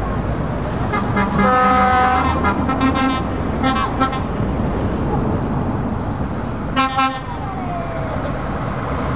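Truck air horns sounding in a string of short blasts between about one and four seconds in, and a quick pair near seven seconds, over the steady rumble of truck engines.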